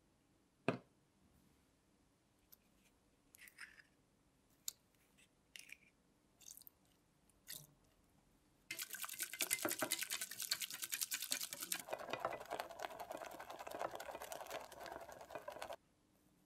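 A single sharp knock about a second in, then scattered light clinks and taps. From about nine seconds, a balloon whisk beats egg yolks and water fast in a stainless steel saucepan: a dense, rapid rattle for about seven seconds, growing lower and wetter as the sabayon foams up, then stopping abruptly.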